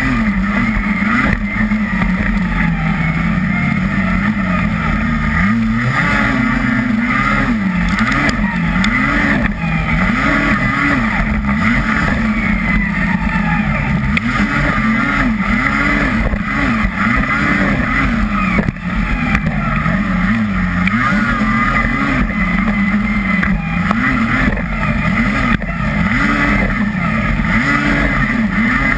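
Polaris snocross race snowmobile's two-stroke engine, heard from on board, revving up and falling back again and again as the sled rides the track.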